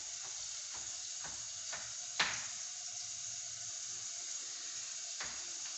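Onions frying in oil in a pan, a steady sizzle, with a few light knocks; the loudest knock comes about two seconds in.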